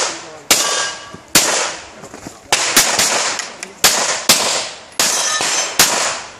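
Handgun shots fired in a practical-shooting course of fire, about eight in quick irregular pairs and singles, each a sharp report with a short echo. A couple are followed by a brief metallic ringing.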